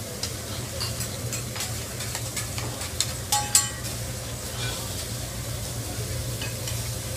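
Eggs sizzling on a teppanyaki griddle as a metal spatula scrapes and taps the steel, with scattered clicks and a few sharp ringing metal clinks about three and a half seconds in, over a steady low hum.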